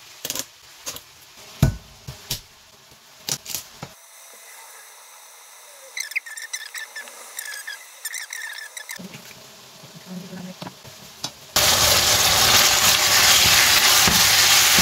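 A kitchen knife tapping and chopping on a wooden cutting board, a series of sharp knocks. A quieter stretch follows with faint high chirps. Near the end, minced beef sizzles loudly in a non-stick wok as it is stirred.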